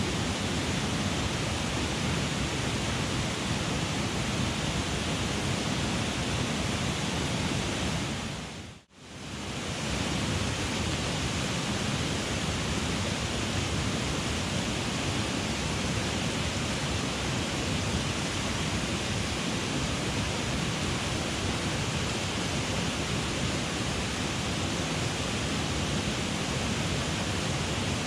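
Mountain headwater stream rushing steadily, an even hiss of running water. It fades out and back in about nine seconds in.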